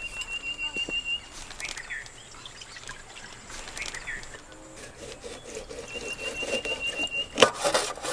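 A kitchen knife cutting into a dragon fruit over a steel plate, with faint scraping and a sharp click near the end. Faint bird chirps and a thin high trill in the background.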